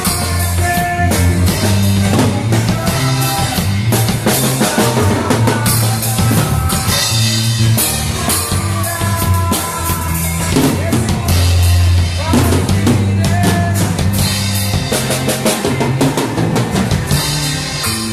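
A band playing a worship song, led by a drum kit with bass drum and snare hits over held, changing bass notes.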